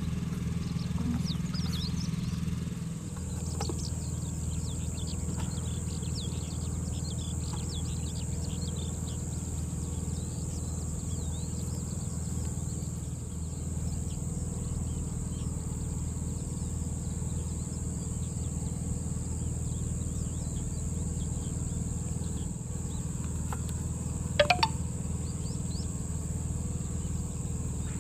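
Open-field ambience: insects keep up a steady high-pitched buzz while birds chirp, over a steady low hum. A single short rising call stands out about twenty-four seconds in.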